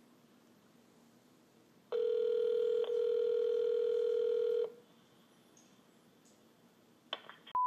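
Telephone ringback tone heard over a phone line: one steady ring of nearly three seconds while the call to the shop is being connected. Right at the end a high steady beep begins.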